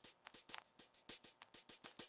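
Quiet background music with a quick, steady run of short percussive beats.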